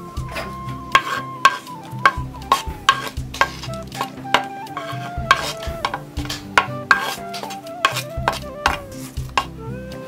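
A spoon clacking and scraping against clay cookware, repeated sharp knocks about twice a second, as spices and leaves are pushed from a clay bowl into a clay pot. Gentle flute melody with sustained bass notes plays underneath.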